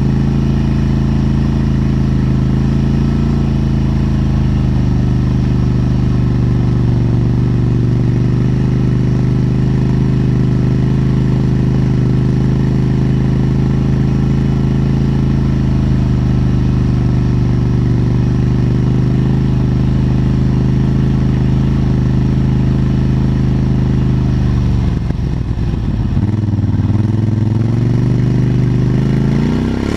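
ATV engine running steadily, heard close to its exhaust. About 25 seconds in the engine note drops and then rises again as the engine speed changes.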